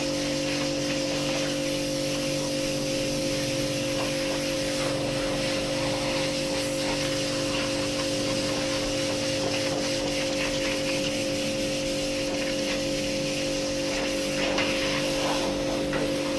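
Pressure washer running steadily, its pump giving a constant hum under the hiss of the water jet spraying the steel cage of an IBC tank.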